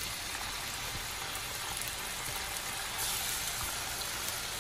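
Thin chicken fillets sizzling in hot avocado oil in a large frying pan on maximum heat, a steady hiss that grows a little louder about three seconds in.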